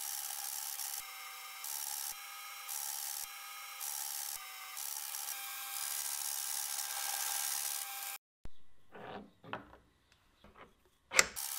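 Milling machine cutting gear teeth with a gear cutter on a dividing-head setup: a steady grinding cutting noise with a few fixed tones, stepping louder and quieter about once a second. It stops abruptly about eight seconds in, leaving a few faint knocks and then a sharp click.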